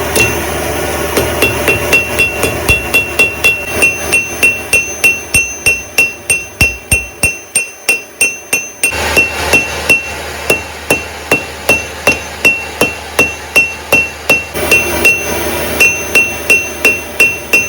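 Blacksmith's hand hammer striking steel bar stock on an anvil in a steady rhythm, about three blows a second, each blow followed by a clear ring from the anvil. A steady low hum runs underneath.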